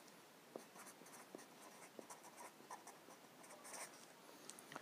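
Black Sharpie felt-tip marker writing on paper: faint, irregular scratchy strokes and small ticks as the letters are drawn.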